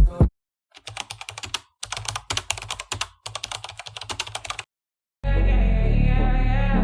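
Rapid clicking of keys being typed on a computer keyboard, in three quick runs that stop about four and a half seconds in. Background music starts near the end.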